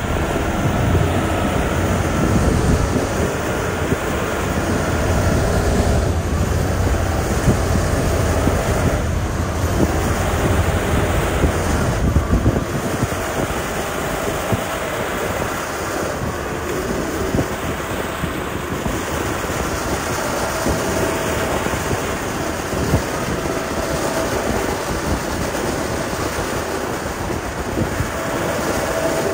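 Diesel engine of heavy road-building machinery running steadily. Its rumble is heaviest for about the first twelve seconds, then eases.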